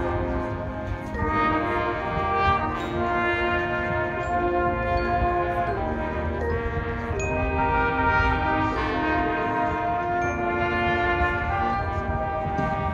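High school marching band playing a brass-led passage of full, held chords that change every second or so.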